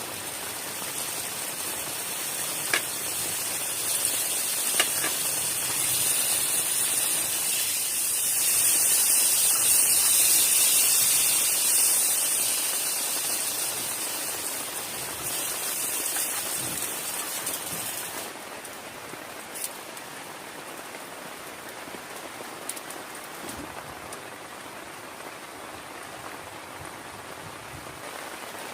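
Heavy rain falling, swelling to its loudest about ten seconds in, then dropping abruptly to lighter steady rain about two-thirds of the way through. A few sharp single drop taps stand out.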